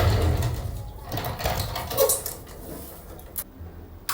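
A foldable walking pad treadmill being moved across the floor: a low rumble that dies away in the first second or so, then scattered knocks and clicks, with a thump about two seconds in.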